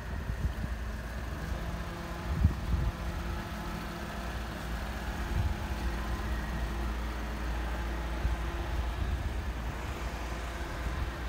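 Street ambience: a low steady rumble with the faint hum of a vehicle engine running, and a couple of low bumps about two and a half seconds in.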